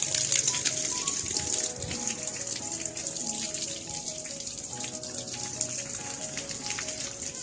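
Background music: a light melody of short stepping notes over a steady high hiss.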